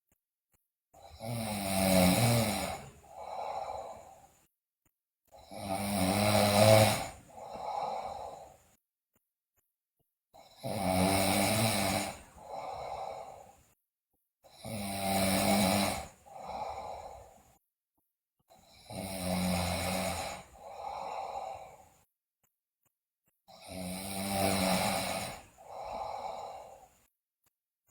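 A sleeping girl snoring loudly in a slow, even rhythm. Each breath is a long snore followed by a shorter, quieter sound, then a pause. This repeats about every four and a half seconds, six times.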